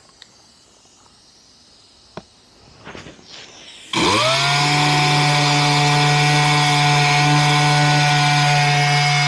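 A few faint handling clicks, then about four seconds in a DA (dual-action) sander starts, spinning up quickly to a steady whine with a hiss, sanding down body filler on a moped frame.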